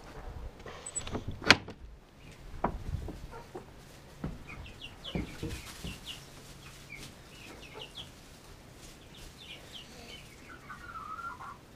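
A few knocks and a sharp click from the coop's wooden door being handled and opened, then young chickens peeping with many short high chirps, busier near the end.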